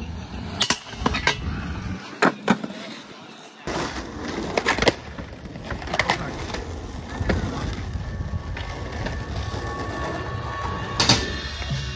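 Skateboard wheels rolling on asphalt, with several sharp clacks of boards popping and landing.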